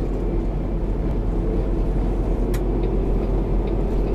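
Semi-truck's diesel engine running at low revs, heard inside the cab as the truck creeps along at walking pace: a steady low rumble with a few faint clicks.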